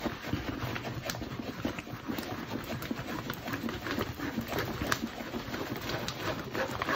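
Diamond-painting canvas with its plastic cover film being rolled backwards around a tube by hand on a tabletop: a continuous rustle of film and canvas, full of small crackles and clicks.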